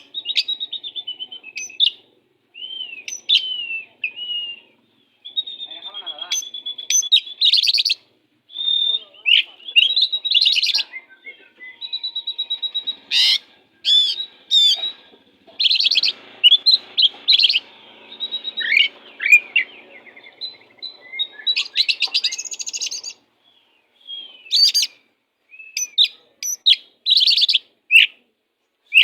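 Oriental magpie-robin (kacer) singing a loud, varied song of rising and falling whistles and rapid trills, in bursts with short pauses. This is the fierce, insistent 'ngotot' style of song used as a tutor for training other kacer.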